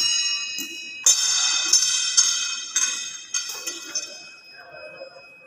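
Steel being struck about six times, each blow ringing on with a high, bell-like tone that fades out near the end.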